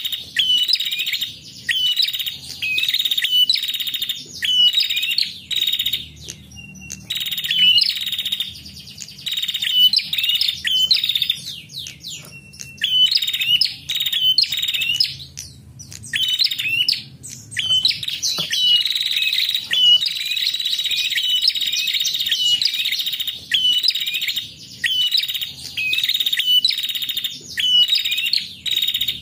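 Caged female prenjak calling without pause: fast, sharp, high chirps strung into repeated phrases, broken by a few short gaps. This is the female call that bird keepers play to draw a male prenjak into song.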